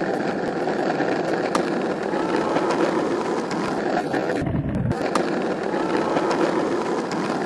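Skateboard wheels rolling on rough asphalt with a steady grinding rumble, broken by a few sharp clacks of the board.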